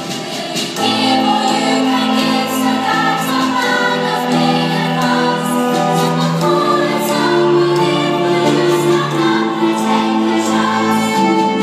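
Youth choir of girls' and children's voices singing in harmony, several parts together on long held notes that change every second or two, amplified through stage speakers.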